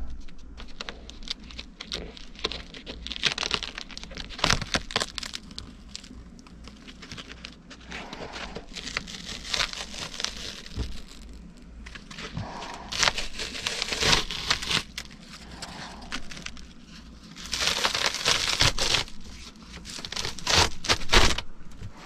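Thin, water-stained RV ceiling paneling being cut and pulled back by hand: irregular crinkling, tearing and crackling with sharp snaps, in louder bursts past the middle and near the end.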